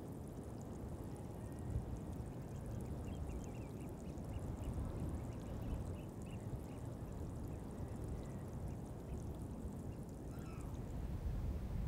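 Wind buffeting the microphone, a steady low rumble. A run of faint high bird chirps comes through in the middle.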